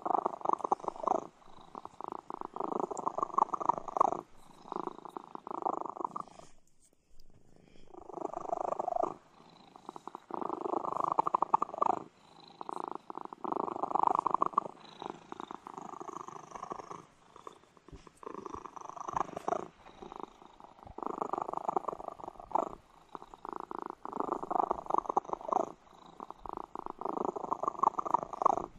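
Ginger-and-white domestic cat purring close to the microphone, a loud, steady purr that swells and eases every couple of seconds with its breathing, with a short break about seven seconds in.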